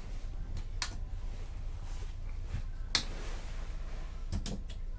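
Low steady hum in a ferry's passenger cabin, with a few short sharp clicks, the loudest about three seconds in.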